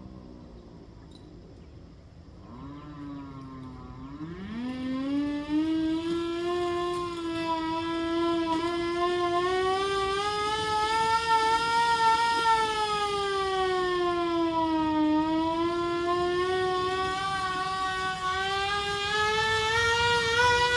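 Hand-crank siren winding down to a low growl, then cranked back up about four seconds in to a loud wail that slowly rises and falls in pitch.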